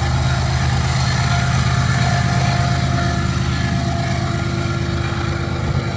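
Diesel locomotive engine running steadily under load as a loaded coal train passes, a constant low hum with a few faint higher tones over it.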